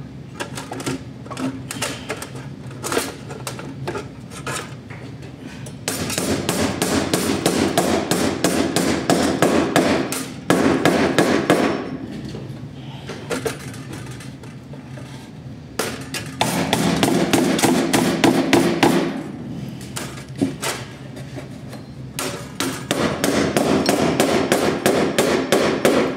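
A hammer tapping nails lightly through a recessed light's metal hanger bar into a wooden ceiling joist, tacking them partway in. The strikes come in several runs of quick taps, some spells louder than others.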